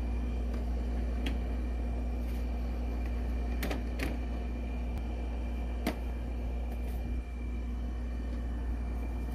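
Steady low machine hum with a faint steady whine, broken by a few sharp clicks, two of them close together about four seconds in.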